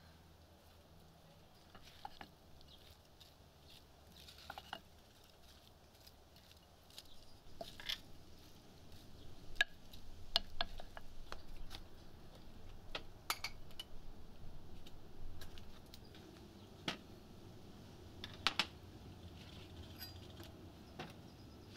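Wooden spatula tossing a chopped watermelon fruit salad in a bowl: irregular soft clicks and knocks, busiest in the middle. Near the end a few sharper taps of a knife on a wooden cutting board.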